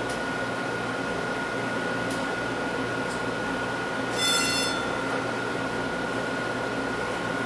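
Steady hum and hiss of control-room equipment and ventilation, with a thin high whine. About four seconds in, a brief electronic buzz lasting about half a second stands out as the loudest sound.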